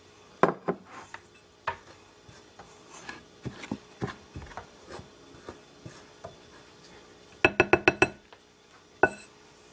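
A spoon clinking and scraping against a mixing bowl while stiff play-dough mixture is stirred, with scattered knocks and a quick run of about six taps past the middle.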